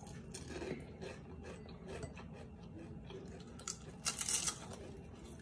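Small clinks, rustles and crackles of fingers picking crispy fried chicken-intestine pieces out of a glass bowl, with a louder cluster of crackles about four seconds in.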